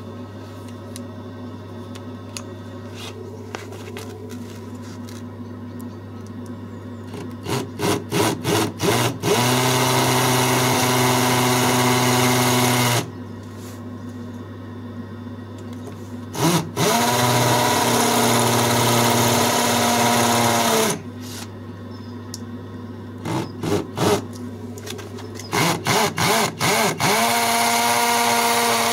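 Cordless drill boring screw holes into the house wall: after a few quiet seconds come short trigger blips that rise in pitch, then three steady runs at full speed of a few seconds each, with pauses between.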